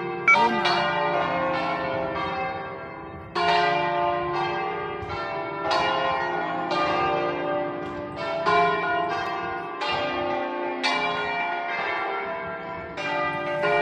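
Church bells pealing: several bells struck in turn, about one stroke a second, each stroke ringing on and overlapping the next.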